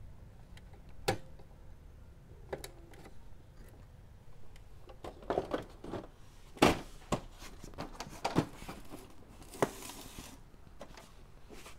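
Hands handling the opened HP Smart Tank 515 inkjet printer: scattered plastic clicks and knocks, busiest in the middle, with a brief rustle near the end.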